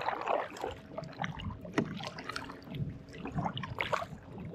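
Double-bladed kayak paddle dipping into lake water, with repeated splashes and drips as the blades enter and leave the water on each stroke.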